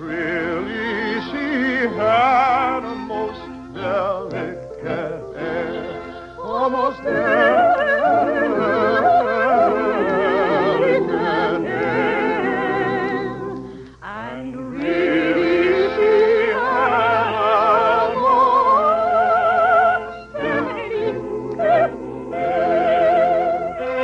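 Operatic soprano singing a concert aria with orchestra, with strong vibrato. About 14 seconds in there is a brief break, then the voice glides up to held high notes.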